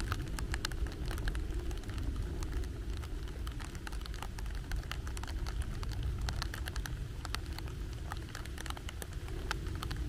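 Rain falling, with raindrops pattering in many irregular sharp ticks, over a steady low rumble of wind buffeting the microphone.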